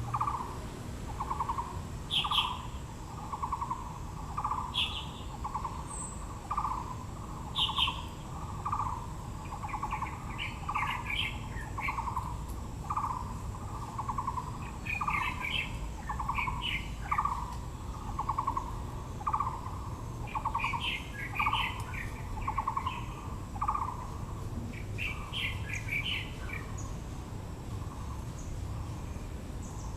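Wild birds calling: one bird repeats a low hooting note steadily, a little more than once a second, fading in the last few seconds, while other birds give short bursts of high chirping every few seconds.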